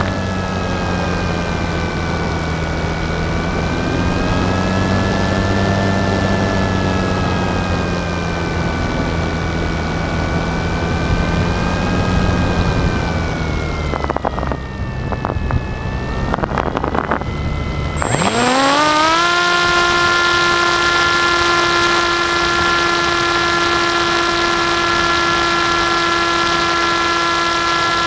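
The electric motor and propeller of an FPV model aircraft in flight. A pitched hum wavers up and down with the throttle, thins out around fourteen seconds in, then at about eighteen seconds rises quickly in pitch and holds a steady whine.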